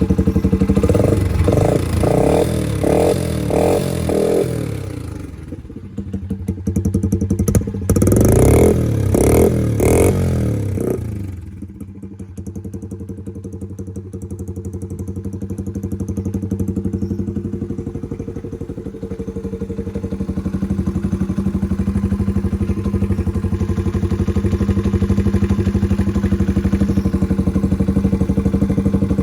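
Honda CRF70's small four-stroke single-cylinder engine blipped several times in quick succession, dropping back, revved again, then settling to a steady idle for the rest. It runs on a new aftermarket top end with the valves set to factory spec, and the valve train noise is gone.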